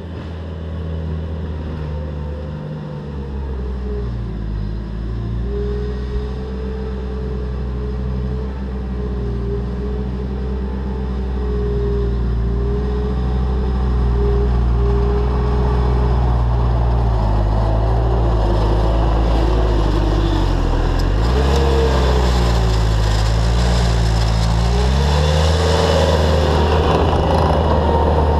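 Bobcat T300 compact track loader's diesel engine running under load while pushing fill. Its pitch sags briefly a few times and picks back up. It grows louder as the machine comes close near the end.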